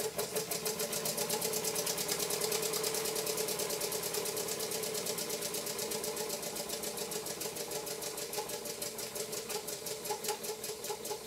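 Brass Birmingham Dribbler toy steam engine running on its stand with a rapid, even beat of many puffs a second, a steady tone alongside. Near the end the beat slows a little and fades as the steam pressure from the weak wax-tablet fire runs down.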